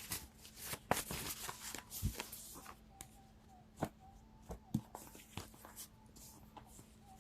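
Tarot cards being shuffled and handled: a busy run of soft riffling and clicks for the first three seconds, then scattered single taps and clicks as the cards are handled more slowly.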